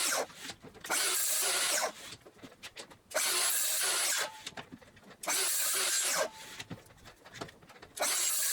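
Repeated scraping strokes, each about a second long and coming roughly every two seconds, like something being rubbed or slid across wood.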